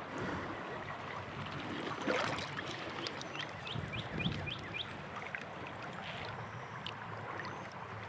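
Creek water running steadily, with a splash about two seconds in from the freshly netted fish. Around the middle a bird gives a quick run of about five short rising chirps.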